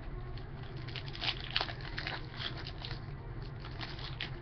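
Scattered soft crinkles and clicks of a trading card pack and cards being handled and opened by hand, over a low steady hum.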